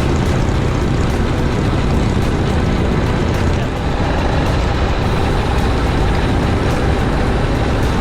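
Motorcycle being ridden along a road: steady engine and wind noise.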